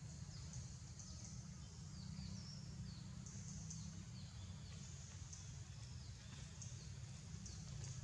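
Forest ambience: birds giving short, falling chirps about twice a second over a steady high buzz of insects, with a low rumble underneath.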